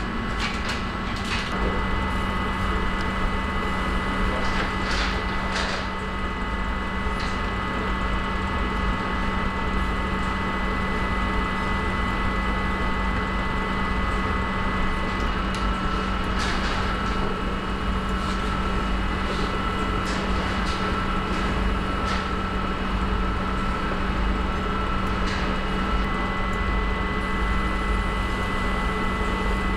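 Steady electric hum and whine of bakery machinery around a baumkuchen spit, with scattered light clicks and knocks.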